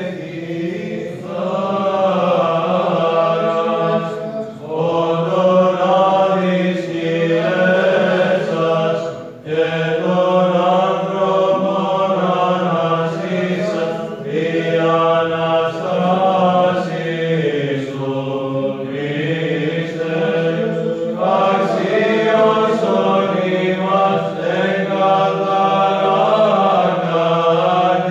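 Greek Orthodox Byzantine chant: a choir singing a slow melody over a steady held drone note (the ison).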